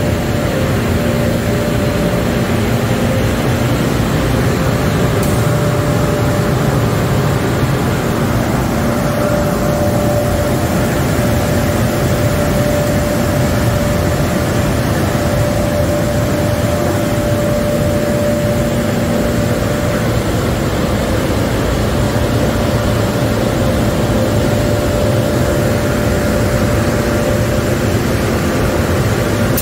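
Automatic car wash tunnel equipment running: a loud, constant wash of machine noise with a steady tone through it.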